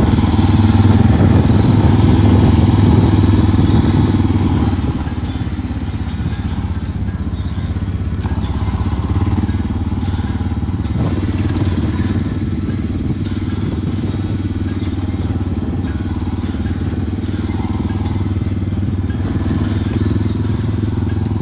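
Single-cylinder dual-sport motorcycle engine running under way, a little louder for the first four seconds or so, then steady at a slightly lower level.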